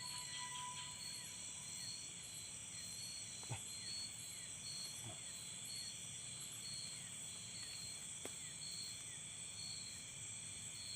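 Night insect chorus of crickets and similar insects, several high-pitched trills at once, some pulsing evenly. There are a few faint ticks, and a faint steady tone in the first second fades out.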